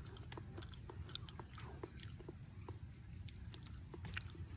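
Faint close-up mouth sounds of someone chewing and eating soft avocado flesh: irregular small wet clicks and smacks, over a steady low background rumble.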